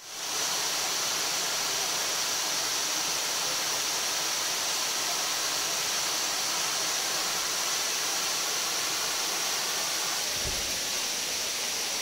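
Waterfall pouring down over rocks: a steady rush of falling water that fades in at the start.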